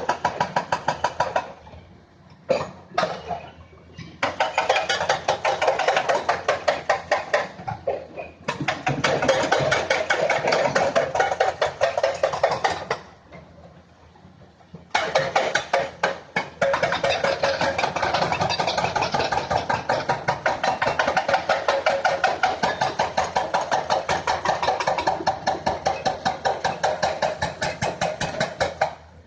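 Hyundai excavator at work: a rapid, even pulsing that goes in long runs, broken by several short pauses.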